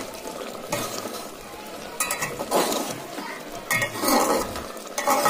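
A metal spoon stirring thick curry in an aluminium pressure cooker pot, with several irregular scrapes and clinks against the pot.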